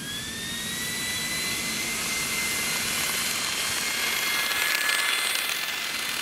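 HP C7000 blade-server fans on an RC jet car whining at speed over a rushing air hiss. The pitch rises at the start and then holds steady. The sound grows louder over several seconds, and a second, lower whine joins past the middle.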